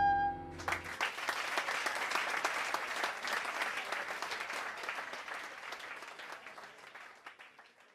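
The song's last held note stops within the first second, and an audience breaks into applause, the clapping dying away near the end.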